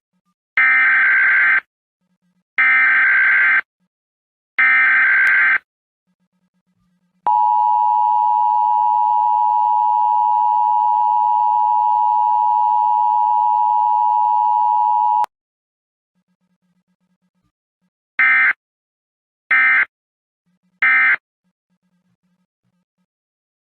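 Emergency Alert System Required Monthly Test tones. Three screeching digital header bursts of about a second each come first. Next is the steady two-tone attention signal, 853 and 960 Hz, for about eight seconds. It ends with three short end-of-message bursts.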